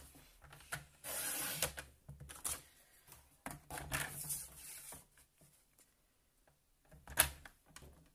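Paper trimmer cutting sheets of card: the blade slides through in two smooth scraping strokes, about a second in and again about three and a half seconds in, with taps and rustles of the card being handled and a sharp knock near the end.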